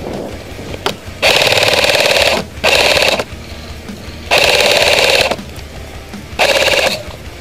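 Airsoft electric gun firing four short full-auto bursts, each a rapid buzzing rattle of shots over the gearbox whine, about a second long, then half a second, then a second, then half a second.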